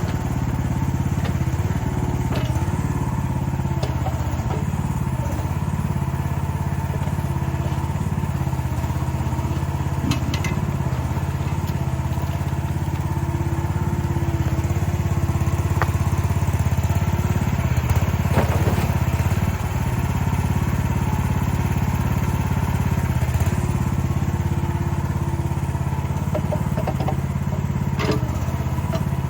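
Small gasoline engine of a Chinese mini excavator running steadily while it digs, with a higher tone that comes and goes as the machine works. A few sharp knocks stand out about ten seconds in, around the middle, and near the end.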